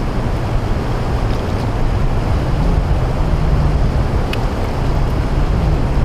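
Wind rumbling on the microphone over sea surf at the shore, a steady low rumble, with a faint click about four seconds in.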